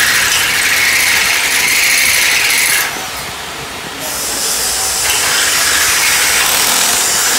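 Handheld electric power drill boring into the steel tube of a trailer frame, a steady loud whirring grind. It eases off for about a second around three seconds in, then bites again.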